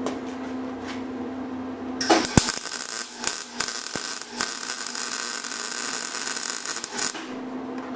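MIG welder arc crackling and sizzling as a bead is run. It strikes about two seconds in with a sharp pop and stops about seven seconds in, over a steady electrical hum.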